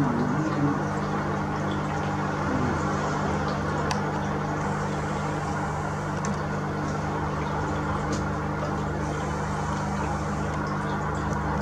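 A steady low hum with an even hiss over it, with a few faint ticks.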